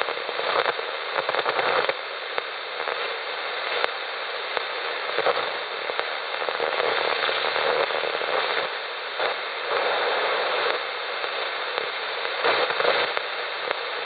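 Steady hiss of static with irregular crackles from a Malahit DSP shortwave receiver in AM mode, tuned across the 3 MHz band with no station coming through. Daytime propagation on the lower band is poor, so few AM stations can be heard.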